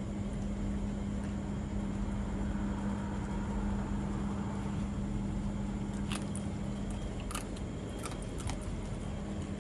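A dog eating rice from a plastic bowl, with a few sharp clicks of mouth and teeth on the bowl from about six seconds in. A steady low hum runs underneath.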